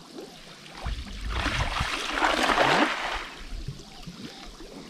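Water splashing and streaming as a cast net is worked through a shallow river pool, building about a second in and loudest near the middle before fading.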